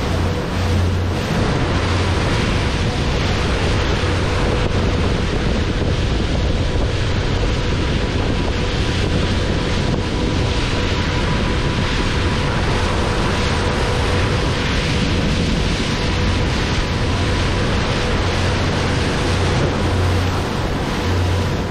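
Motor boat under way at speed: a steady engine drone with a faint constant hum, water rushing past the hull, and wind buffeting the microphone.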